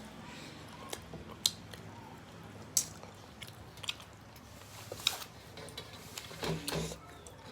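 Person chewing a mouthful of rice and fish close to the microphone, with several sharp mouth clicks and smacks spread through.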